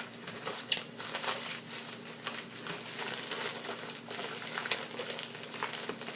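Packaging crinkling and rustling as it is handled, with scattered sharp clicks.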